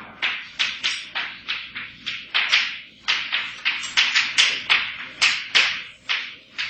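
Chalk writing on a blackboard: a quick series of sharp taps and scrapes, about three strokes a second.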